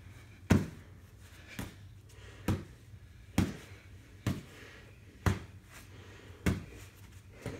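Boxing gloves thudding as punches land in a steady series of about eight blows, roughly one a second.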